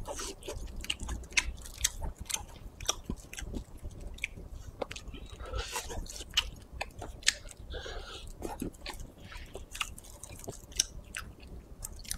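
Close-miked chewing of dry, chewy spicy shredded duck meat: an irregular run of small clicks and smacks from the mouth, with a few brief noisier chews.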